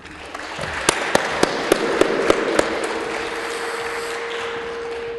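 Audience applauding: the clapping swells over the first second, with a few sharp individual claps standing out, and slowly thins out near the end.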